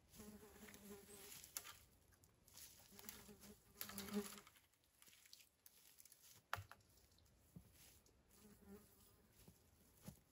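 Flying insect buzzing in three separate passes, the longest nearly two seconds. Faint rustles and a couple of sharp clicks come between the passes.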